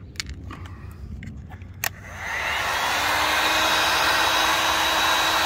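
Handheld electric heat gun switched on: a sharp click about two seconds in, then its fan spins up over about a second and runs steadily, a rush of blown air with a thin high whine and a low hum.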